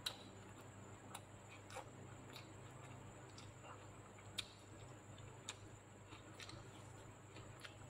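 Faint, irregular wet clicks and smacks of a mouth chewing food, scattered about once or twice a second, the loudest near the start and about four and a half seconds in, over a low steady hum.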